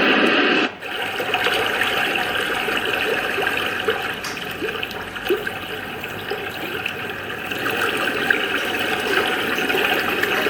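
Sleep sound from the T16 alarm clock radio's built-in sound machine: a steady rush of running water through its small speaker. It takes over from a different sound just under a second in and switches to a quieter one at the end.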